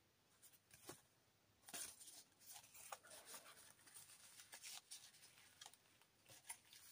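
Near silence with faint rustling and a few light taps of paper, card and fabric being handled as the pages of a handmade junk journal are shown.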